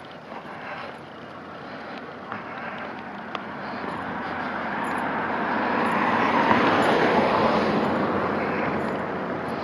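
A car passing by, its road noise swelling to a peak about six or seven seconds in and then fading away.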